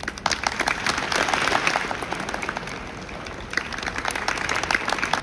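A crowd applauding: many hands clapping at once, loudest about a second in, easing off, then picking up again near the end before cutting off sharply.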